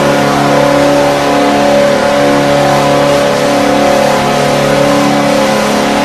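Ice hockey arena goal horn sounding one long, steady multi-tone chord.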